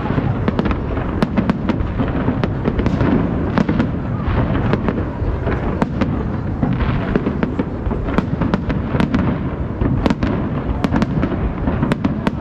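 Aerial fireworks display: a dense, continuous barrage of shell bursts and crackling, with sharp cracks several times a second over a steady low rumble.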